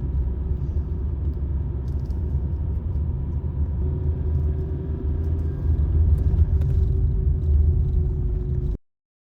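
Low, steady rumble of a moving vehicle, with a faint steady hum joining about four seconds in; it cuts off abruptly near the end.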